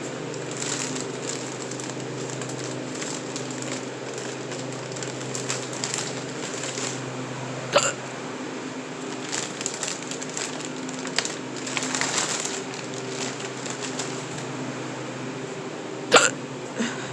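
A person hiccuping: two sharp hiccups about eight seconds apart, the second followed quickly by a smaller one, over a steady machine hum.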